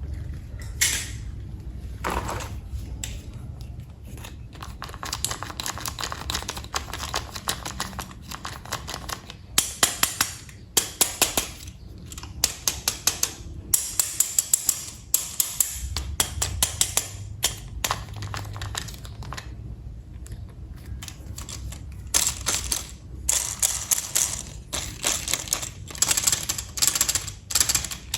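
Plastic toy train parts being handled and clicked together: irregular runs of sharp clicks and taps, thickest in clusters midway and near the end.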